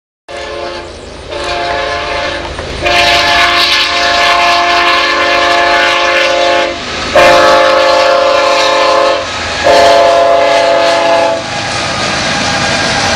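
Multi-chime air horn of BNSF diesel locomotives sounding a series of blasts, the longest held about four seconds. After the horn stops, near the end, the steady rumble of the train rolling past takes over.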